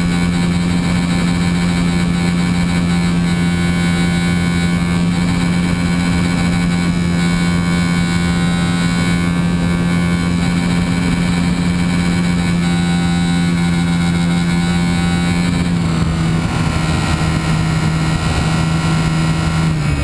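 Remote-control foam plane's motor and two-blade propeller running steadily at cruise, a constant buzzing tone over wind noise, heard close up from a camera mounted on the plane. The pitch eases down slightly about three-quarters of the way through as the throttle is backed off.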